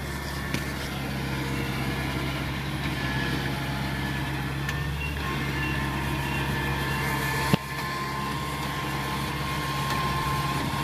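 Kubota DC-70 combine harvester's diesel engine running steadily as the machine crawls on its tracks through deep mud. A single sharp click about two thirds of the way through.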